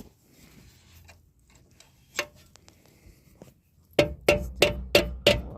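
Hammer blows on metal, driving out the pin in a pop-up camper's lift crank mechanism. There is a single strike a couple of seconds in, then from about four seconds in a quick, even run of ringing metal strikes, about three a second.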